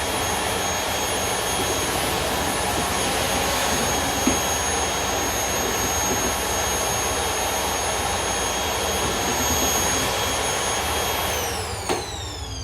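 Household vacuum cleaner running steadily: a rush of air with a high motor whine over it. Near the end the whine starts falling in pitch and the sound dies away as the motor is switched off and spins down, with a click in between.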